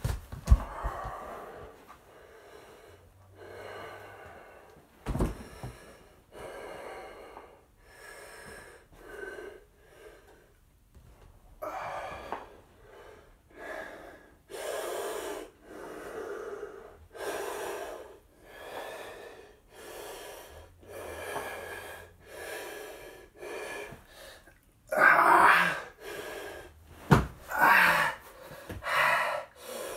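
A man breathing hard from exertion, a loud breath about every second, swelling into heavy gasps near the end. A few dull thumps come through, at the start, about five seconds in and near the end.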